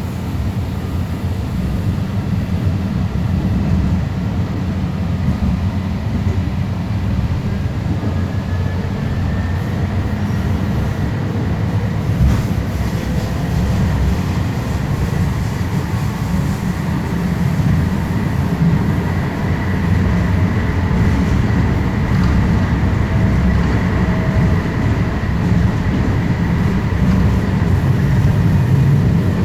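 Alstom Citadis Spirit light-rail train running between stations, heard from inside the car: a steady rumble of wheels on rail, with a faint high whine joining about a third of the way in and a single sharp knock near the middle.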